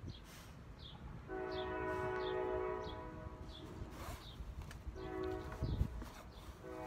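A horn sounding a steady multi-note chord in long blasts: one of about two seconds starting a second in, a short one near five seconds, and another starting near the end. Under it a bird repeats a short, high, falling chirp.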